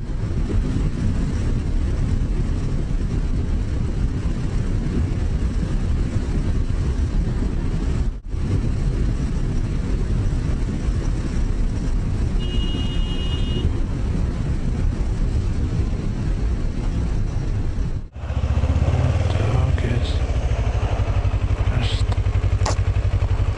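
Motorcycle riding in traffic: engine running under a steady rush of wind noise, with a short high beep about halfway through. After a cut near the end, the engine hum is louder and steadier.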